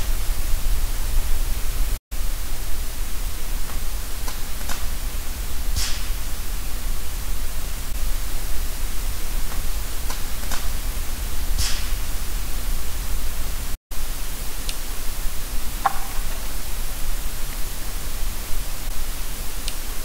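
Steady hiss of a heavily amplified night-time digital recorder, cut twice by brief total silences. Faint short ticks are heard twice in the same pattern, and a short, falling, call-like sound comes near the end; none of them can be named.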